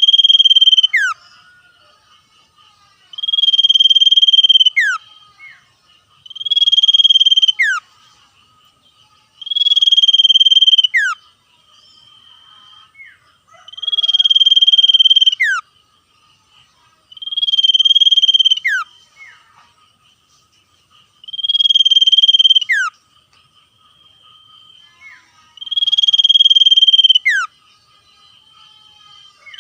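Common iora (sirtu cipoh) singing a loud, buzzy trill over and over, about every three to four seconds. Each trill is held for over a second and ends in a sharp downward whistle. A faint steady high hum runs underneath.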